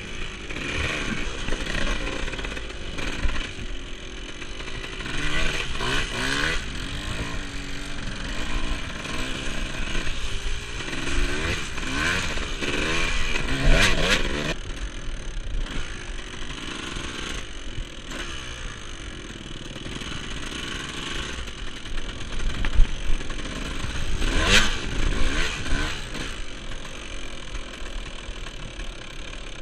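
Off-road dirt bike engine revving up and down, its pitch rising and falling over and over, with louder peaks about halfway through and near the end.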